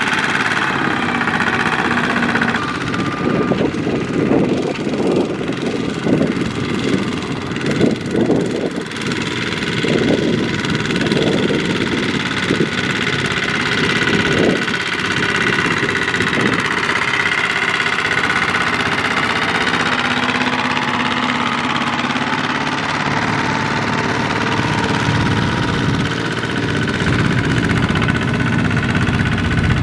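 Single-cylinder Kubota diesel engines of two-wheel walking tractors running under load as they haul loaded trailers through a soft, muddy field, one tractor passing after another. The engine beat is uneven, with short surges in the first half, and steadier later.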